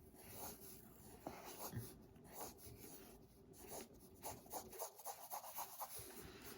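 Faint scratching of a drawing tool on paper: a run of short, quick strokes as lines are drawn.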